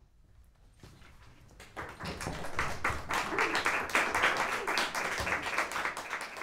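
Audience applauding: a few scattered claps that swell about two seconds in to steady, dense clapping from a small audience.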